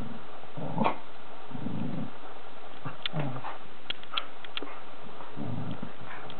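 Dog growling playfully in several short, low rumbles while wrestling with a kitten, with small clicks and rustles of the tussle on the bedding in between.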